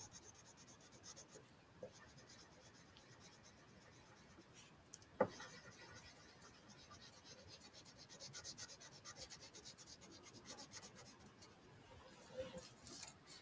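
Faint scratchy rubbing of a wax crayon coloring in on a paper worksheet, in rapid repeated strokes. There is a single sharp tap about five seconds in.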